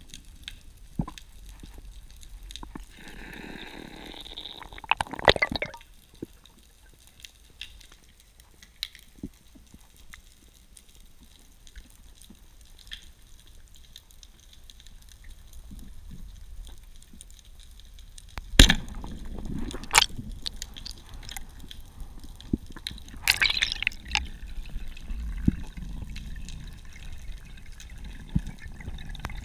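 Underwater sound through a diving camera: water noise with scattered sharp clicks. There is a noisy swish about four seconds in, and a sharp knock past the middle followed by more water noise and another swish.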